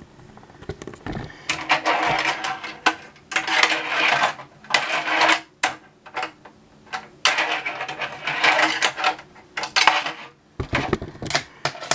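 Tech Deck fingerboard's wheels rolling across a plastic ramp in several runs, with sharp clacks as the board strikes and lands on the plastic.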